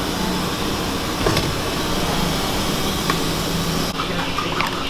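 Steady hum and hiss of a busy food stall's background, with a few light clinks of a spoon against plates and containers as food is served.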